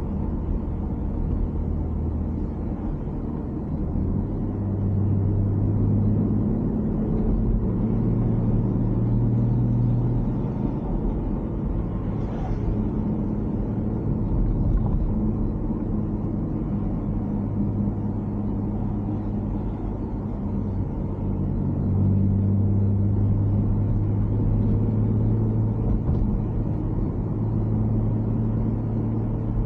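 BMW X4 M40i's turbocharged inline-six running on the move, its low engine hum swelling and easing several times as the throttle changes, over steady tyre and road rumble.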